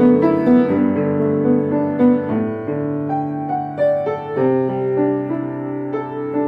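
Piano playing a slow piece: held low bass notes that change a couple of times, under a melody of single notes and chords.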